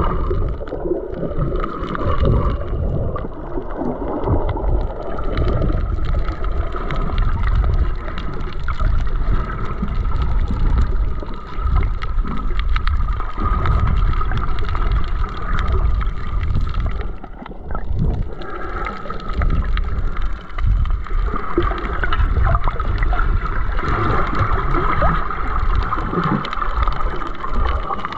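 Muffled underwater sound picked up by a camera in a waterproof housing: an uneven low rumble and gurgling of moving water, with a steady faint high hum underneath.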